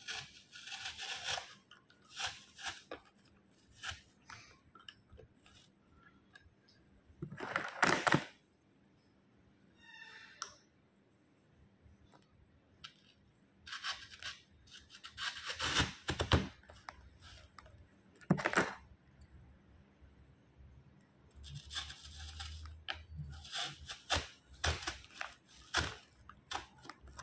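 Beaded flower stems clicking, rustling and scraping against each other and the plastic pot as they are pushed in and repositioned by hand, with a few louder scraping bursts.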